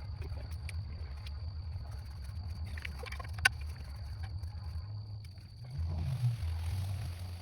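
Clicks of the blind's frame poles being fitted together during assembly, one sharp click about three and a half seconds in, over a low rumble and a faint steady high tone that stops about six seconds in.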